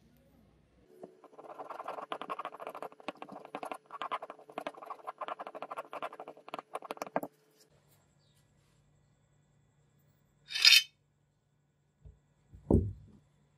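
Pocketknife blade scraping rapidly back and forth over tape on a hard surface for about six seconds. Later a short hiss, then a low knock near the end.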